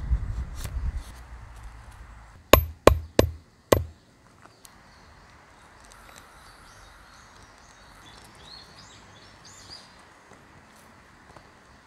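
A steel knife working wood on a chopping stump: heavy scraping strokes, then four sharp knocks with a metallic ring about two and a half seconds in. After that it is quieter, with faint crackling as the wood shavings are lit.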